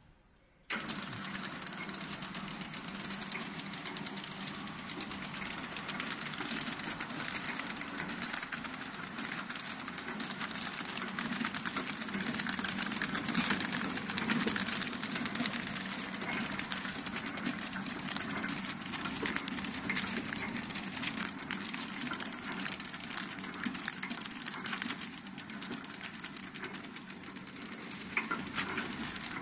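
Horizontal pillow-bag flow-wrap packing machine running while it wraps chocolates: a continuous mechanical clatter of fine, rapid ticking with a thin steady high whine. It cuts in abruptly about a second in.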